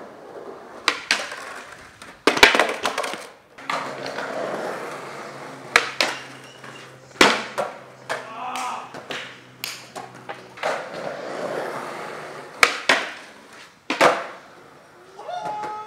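Skateboard wheels rolling, with repeated sharp clacks and slams of the board hitting the ground.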